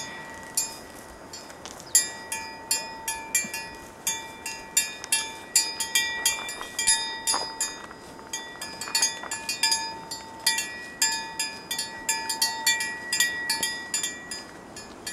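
A bell on a grazing cow's neck clanking and ringing at an uneven pace, one to several strikes a second, as the animal moves while it feeds. A faint steady hiss lies underneath.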